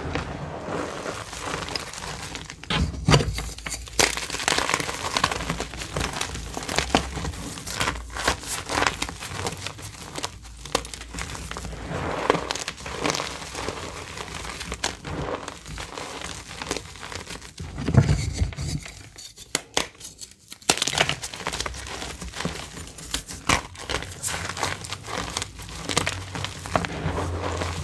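Reformed gym chalk crunching and crumbling as gloved hands squeeze and crush chunks of it into a bed of chalk powder: a dense, continuous run of small crackles, with heavier low thuds about three seconds in and again near eighteen seconds.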